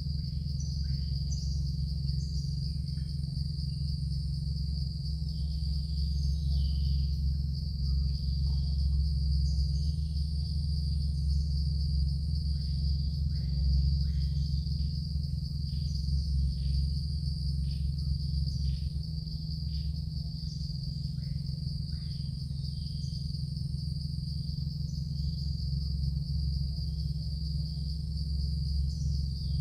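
Steady high-pitched drone of crickets or other insects, with scattered short falling chirps over it, above a steady low hum.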